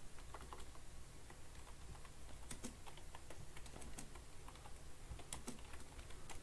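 Computer keyboard being typed on: faint, irregular clicking keystrokes, scattered unevenly, over a low steady hum.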